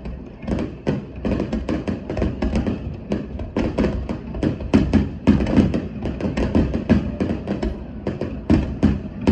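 Fireworks going off in a rapid, irregular barrage of bangs and thumps, several a second, over a low rumble.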